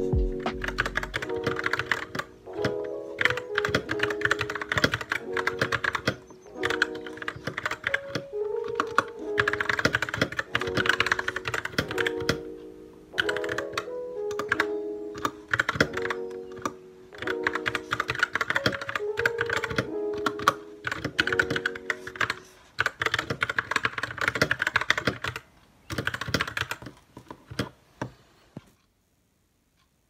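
Fast typing on a Royal Kludge RK61 mechanical keyboard, rapid clacking keystrokes in bursts with short pauses, over background music. The typing stops shortly before the end.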